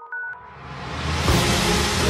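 Background music: a brief synthesizer jingle ends on one last high note. A rising swell of noise then builds into a full theme track, whose deep bass comes in about halfway through.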